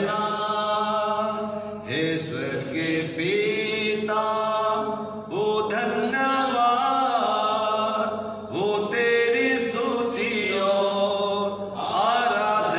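A man singing a slow Hindi hymn in long, drawn-out phrases, the notes held and sliding, with short breaks between about four phrases.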